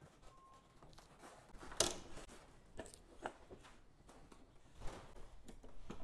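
Cast-iron hand printing press being worked: a sharp clack about two seconds in, then a few lighter knocks and clicks about a second later and near five seconds.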